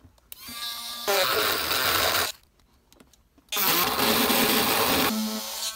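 Handheld rotary tool with a cutoff wheel cutting through a 1/4-inch nylon bolt: the motor's whine comes up, then two loud stretches of grinding about a second apart as the wheel bites into the nylon, and the tool runs free near the end.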